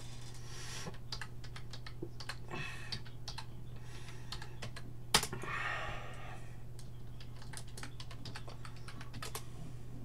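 Typing on a computer keyboard: irregular runs of key clicks, with one sharper, louder keystroke about five seconds in. A steady low hum sits underneath.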